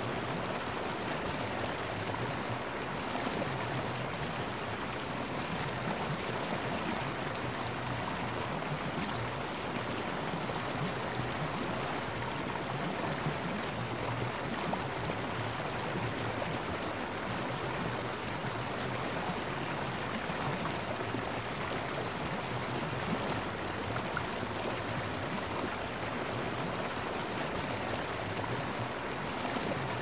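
Waterfall: a steady rush of falling water splashing into its plunge pool, even and unbroken throughout.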